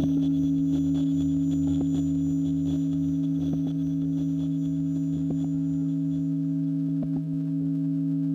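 Electroacoustic feedback drone: two steady low tones held together without change, with scattered faint clicks. A low rumble beneath them fades out about two-thirds of the way through.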